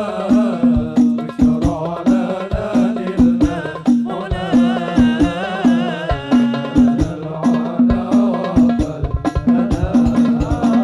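Hadroh ensemble playing sholawat: a male voice sings a wavering, ornamented melody into a microphone over a steady beat of hand-struck frame drums with a deep bass drum.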